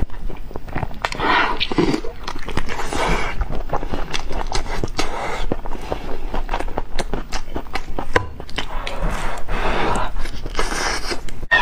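A person eating close to the microphone: dense, sharp clicks of chewing and biting, with a few longer, louder swells of mouth noise.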